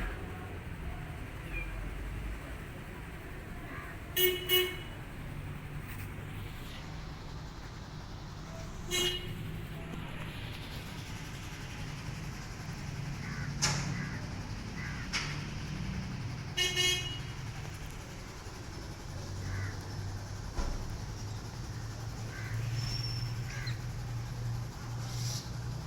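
Street traffic running in the background, with a car horn tooting: two quick toots about four seconds in, one at about nine seconds, and two more near seventeen seconds.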